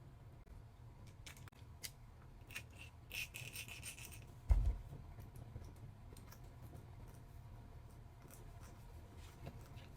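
Small tools and metal RC axle parts handled at close range: scattered light clicks, a brief scraping about three seconds in, and a dull thump a little after four seconds.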